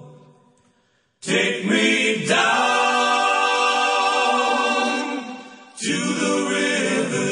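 Background music: sustained wordless choral singing, apparently a cappella. The music fades out in the first second, then the choir comes in abruptly with held chords. It drops away briefly near the end and comes back.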